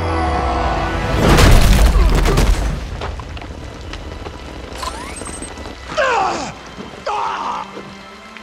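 A heavy cinematic impact boom about a second in, a body-slam hit sound effect with a deep rumbling tail lasting over a second, over dramatic film music. Two shorter sudden sounds follow near the end.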